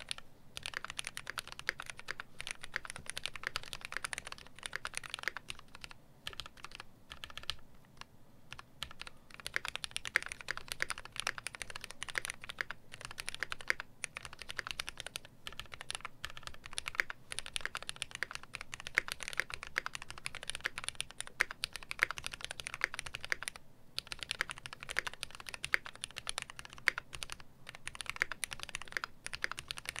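Fast, continuous typing on a KBDfans KBD67 MKII mechanical keyboard with a brass plate and retooled Cherry MX Black linear switches: a dense run of key clacks with a few brief pauses.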